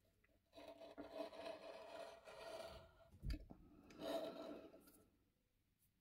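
Circle cutter's blade scraping through kraft paper as the cutter is turned, in two stretches, with a soft knock between them.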